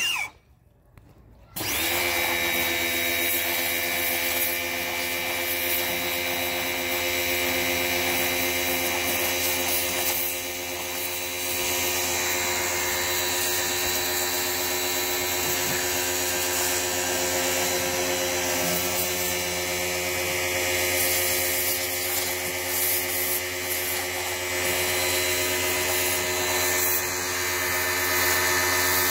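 Electric pressure washer's motor and pump running steadily as it sprays. It stops for about a second just after the start and then runs again.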